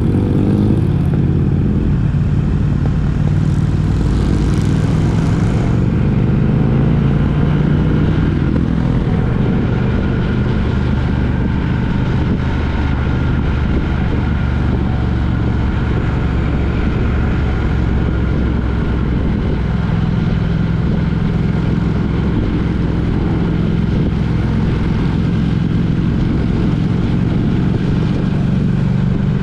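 A motor vehicle's engine running steadily with road noise during a drive, its pitch shifting a little in the first several seconds.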